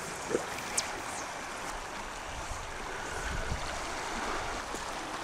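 River current running over a riffle: a steady rush of water, with a couple of faint clicks in the first second.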